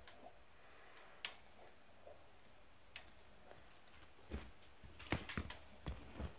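Faint, scattered clicks, then a quick run of light knocks and thuds in the second half: contact noise at a wire rat cage, from the cage bars and fittings being knocked.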